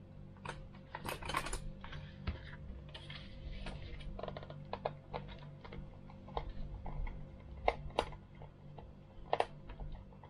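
Scattered sharp plastic clicks and taps from handling a pistol-grip RC boat transmitter and undoing its battery-cover screw with a small screwdriver; a few louder clicks near the end.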